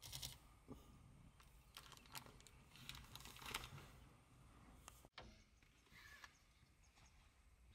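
Faint rustling and crackling of dry grass as a plains zebra moves and walks through it, loudest about three and a half seconds in. After about five seconds it turns quieter, with a few faint high chirps near the end.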